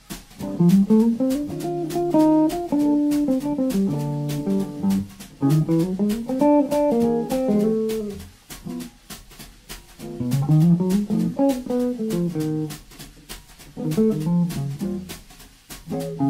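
Semi-hollow-body electric guitar playing fast single-note jazz lines in about four phrases, several opening with a quick rising run and separated by short pauses.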